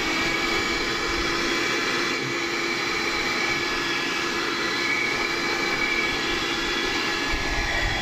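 Piranha PVC-4005 handheld 12-volt, 60 W car vacuum cleaner running steadily, a constant motor whine over the rush of sucked air.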